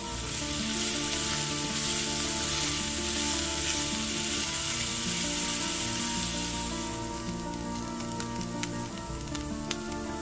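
Chopped onion sizzling as it fries in a stainless steel pan while being stirred with a wooden spoon. The sizzle is loud for the first several seconds, then eases, with a few light clicks near the end.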